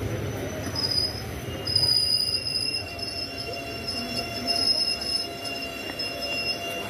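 Steel wheels of a Janmabhoomi Express coach squealing against the rails and brakes as the train rolls slowly along the platform, several high, steady squeal tones setting in about a second in over a low rumble.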